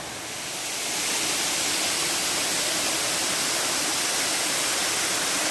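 Waterfall splashing: a steady rush of falling water that grows louder over the first second, then holds.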